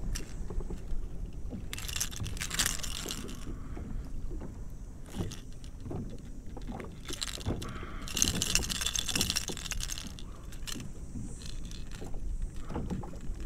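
Small metallic clinks and rattles of fishing pliers and tackle being handled in a kayak cockpit, with two stretches of high hissing rustle.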